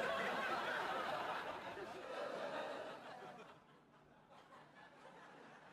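Laughter, loud at first and dying away about three seconds in.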